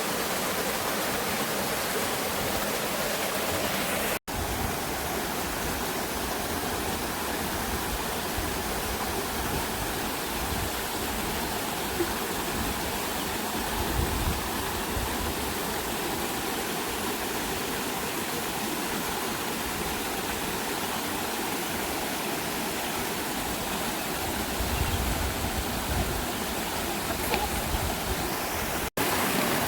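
Waterfall and stream water rushing steadily over rocks, with two momentary breaks in the sound, about four seconds in and near the end.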